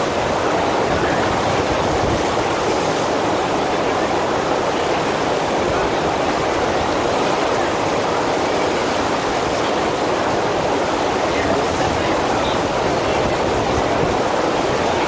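FlowRider sheet-wave machine's pumped water rushing over the wave surface in a steady, even roar.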